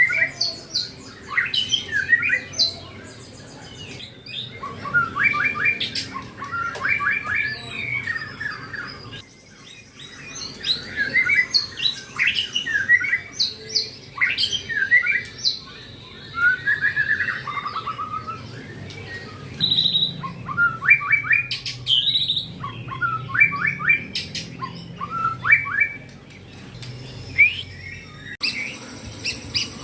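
Caged male white-rumped shama (murai batu) singing a long string of varied phrases, with short pauses between bursts of song.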